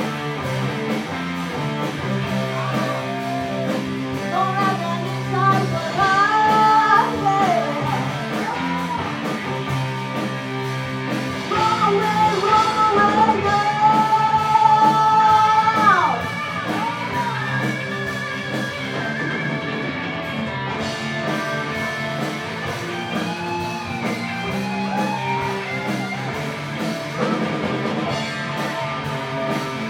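Live rock band playing a song with a lead singer over electric guitar, bass, drums and keyboard. The band swells louder for a few seconds about twelve seconds in, then settles back.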